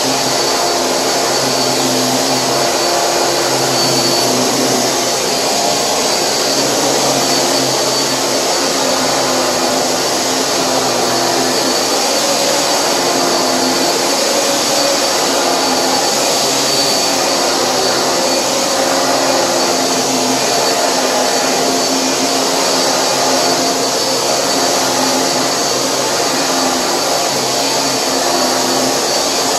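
Hoover vacuum cleaner running steadily, its motor humming under a constant rush of airflow.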